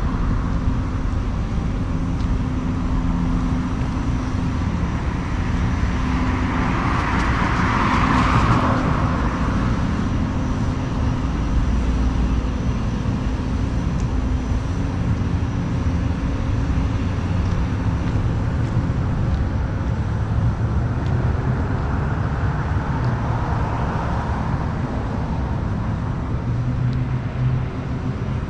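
City street traffic: a steady low rumble of engines, with cars passing and their tyre noise swelling and fading about eight seconds in and again near the end.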